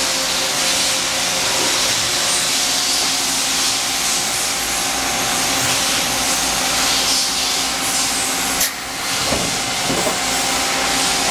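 Running shop machinery: a steady loud hiss with a constant hum underneath. It dips briefly about three-quarters of the way through.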